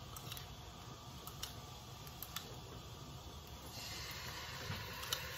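A metal spoon clicking now and then against a small glass bowl as a fish-sauce mixture is stirred, then, from a little past halfway, a steady sizzle as the sauce is poured into the hot wok.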